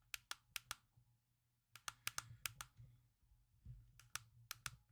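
Faint clicking of the push-buttons on a selfie ring light's in-line cord controller, pressed in three quick runs of several clicks each to step the light's brightness.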